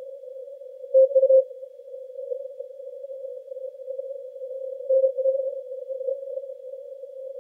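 Morse code (CW) heard through a Yaesu FTdx10 receiver on the 80-metre band, narrow-filtered to one pitch. Weak signals sit in steady band noise, with short stronger bursts of keyed tone about a second in and again about five seconds in.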